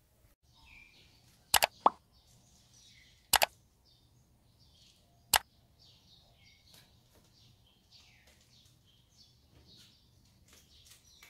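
A few sharp, loud pops in the first half, over faint, high chirping throughout.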